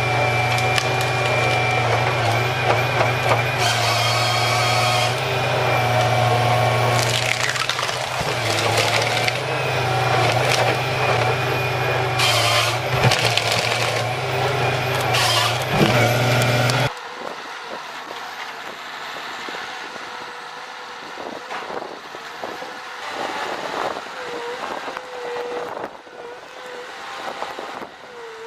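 A heavy tree-felling machine's engine running steadily, with wood cracking and crunching over it. About two-thirds of the way in, the sound cuts suddenly to a much quieter scene of scattered faint noises.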